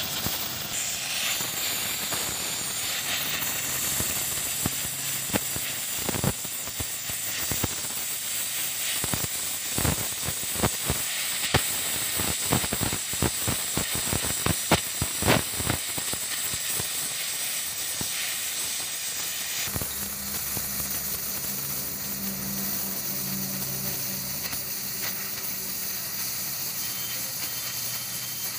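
Gas welding torch flame hissing steadily while filler rod is melted into a weld on a steel pipe. A run of sharp crackling pops comes in the middle. About two-thirds of the way through the hiss gets duller and a low hum joins it.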